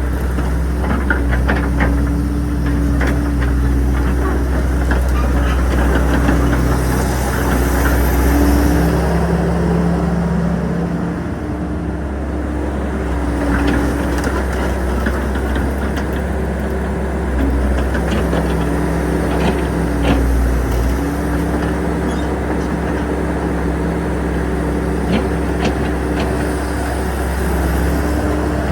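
Hydraulic excavator's diesel engine running continuously, its pitch stepping up and down several times as the load changes, with scattered clicks and knocks.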